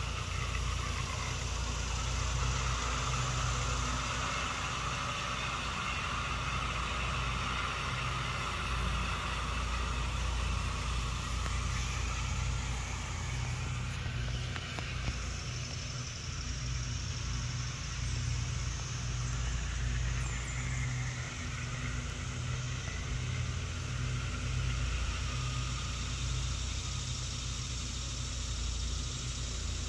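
Lawn mower engine running steadily, a low even drone with no change in pitch.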